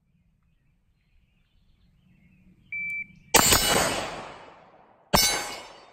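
Shot timer beep, then two gunshots about two seconds apart, each with a long echoing tail. The shots come from a rifle-to-pistol transition drill with a KAC SR-15 Mod 2 carbine and a Glock 19.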